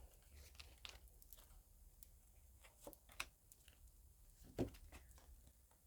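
Faint, scattered flicks and taps of tarot cards being handled as an advice card is drawn from the deck, over near silence.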